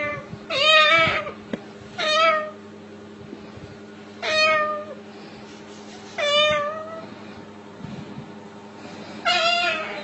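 White cockatoo imitating a cat, giving five separate meows, each about half a second to a second long, over a faint steady hum.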